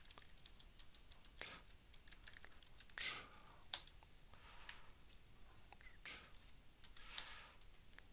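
Computer keyboard typing: a faint, irregular run of keystroke clicks, with a couple of louder, longer strokes about three seconds in and again near the end.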